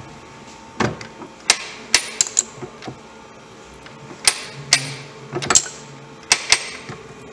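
Old ball bearings being forced out of a Bridgeport step-pulley bull gear housing on a rack-and-pinion arbor press: about ten sharp metallic cracks and knocks in irregular clusters as the bearings break loose and shift down the bore. A steady hum runs underneath.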